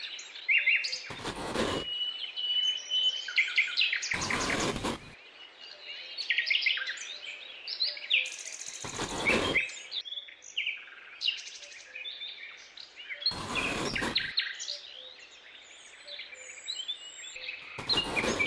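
Birds chirping and trilling throughout, with five short gritty scrapes spaced about four seconds apart as wooden posts are pushed down into sand.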